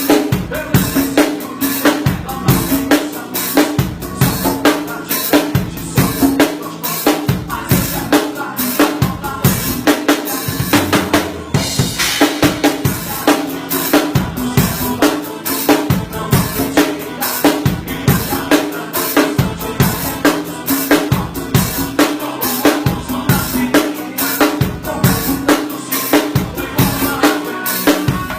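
Drum kit played in a steady groove, with kick drum, snare and rimshot hits, along with music.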